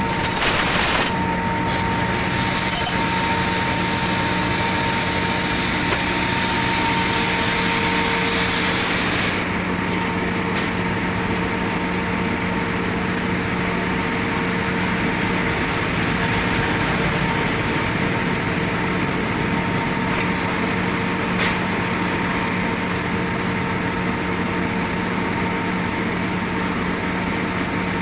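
A vehicle engine running steadily at idle, with a constant low hum. A high hiss over it stops about nine seconds in.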